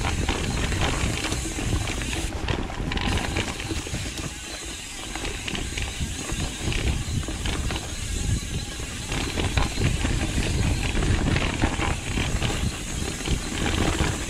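Pivot Firebird 29 mountain bike riding down a dirt trail covered in dry leaves: tyres rolling over dirt and leaf litter, with the bike rattling and knocking over bumps. Wind noise on the chest-mounted camera's microphone adds a low rumble.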